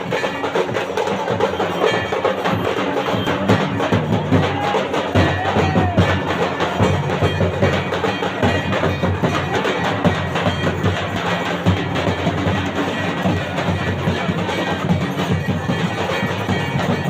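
Dhol drums beating in a fast, dense rhythm, with a shehnai's reedy melody weaving over them.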